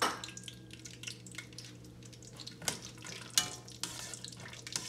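Nuts frying in ghee in a stainless steel pan, sizzling steadily. A spatula stirs and scrapes, with a few sharp metallic clicks that ring briefly against the pan, loudest in the second half. A low steady hum runs underneath.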